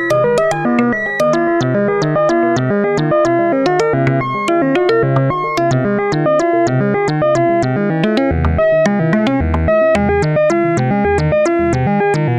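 Make Noise Eurorack modular synthesizer patch playing a fast sequence of short plucked notes, several a second. Deep bass notes join about eight seconds in.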